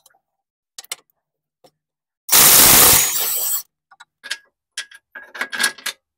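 A cordless power tool runs in one short burst about two seconds in, spinning out the rear 22 mm lower control arm bolt. Sharp metallic clicks and clinks of the socket and bolt come before and after it.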